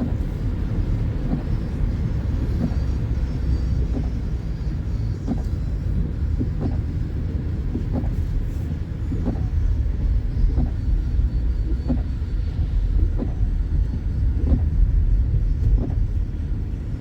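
A car driving on a snowy mountain road, heard from inside the cabin: a steady low rumble of road and engine noise, with a faint regular tick about every two-thirds of a second.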